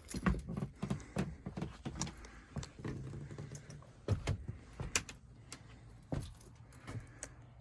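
Scattered clicks, knocks and light rattles of hands handling equipment, with a few sharper knocks about a second in and again around four and five seconds.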